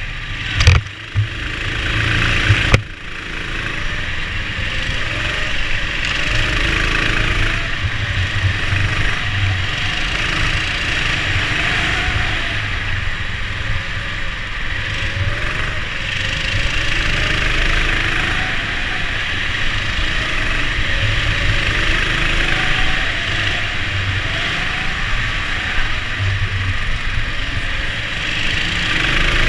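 Rental go-karts racing on an indoor track, heard from on board one of them: a steady engine rumble whose pitch rises and falls with the throttle. Two sharp knocks come in the first three seconds.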